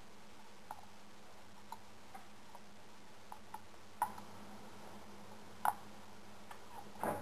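Light, sharp clicks and taps at irregular intervals, the strongest a little after four seconds and again near six. A louder rough sound starts just before the end.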